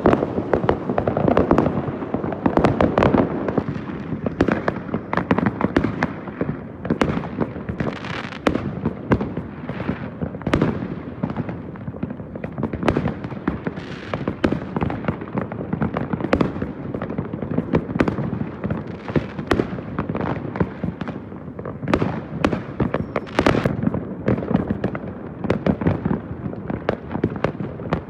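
Fireworks going off without a break: many overlapping bangs and pops, several a second, some near and loud, others farther off.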